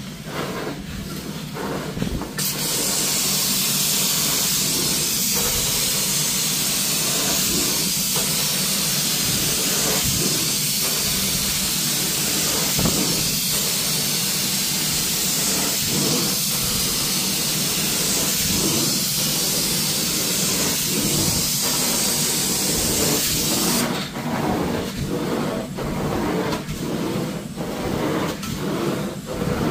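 Hot water extraction carpet wand working the carpet: the extractor's vacuum runs with a steady low hum. Hot water sprays from the wand's jets from about two seconds in until it shuts off suddenly a few seconds before the end, leaving only the vacuum strokes.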